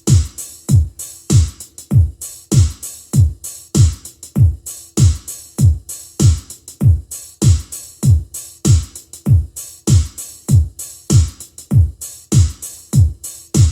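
Electronic music with a drum-machine beat played through a pair of vintage Jensen X-45 two-way bookshelf speakers, each with an 8-inch woofer and a horn tweeter. Deep kick drums drop in pitch at about two a second, with hi-hats ticking over them.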